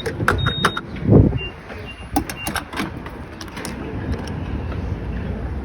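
Car cabin sounds: a run of sharp clicks and knocks with a few short high electronic beeps, and a low thump about a second in. Then a steady low rumble of the car.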